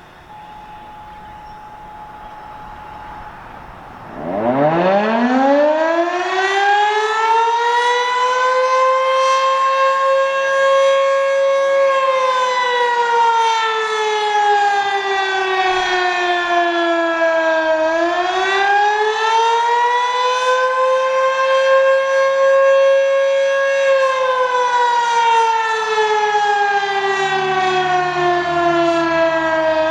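Model 20 fire siren winding up from low to its top pitch about four seconds in, then falling and rising in slow wails about twelve seconds apart: the wavering attack signal it sounds for fire calls, here in its weekly test.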